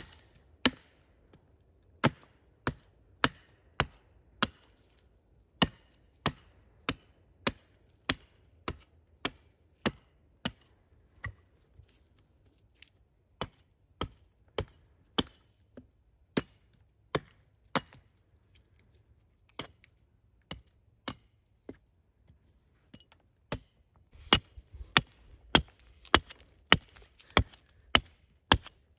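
Wood being chopped with a bladed tool: a steady run of sharp chopping strikes, about one and a half a second, broken by two short pauses, with quicker, closer strikes near the end.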